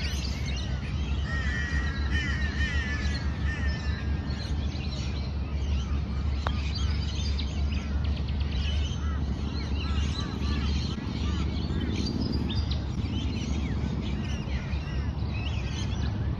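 Several birds chirping and calling over a steady low rumble of outdoor background noise.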